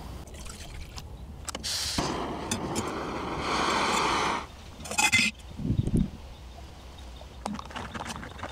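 Backpacking canister stove burning under a titanium pot, a steady rushing hiss that grows louder and then cuts off abruptly, followed by a few sharp metallic clinks of the pot.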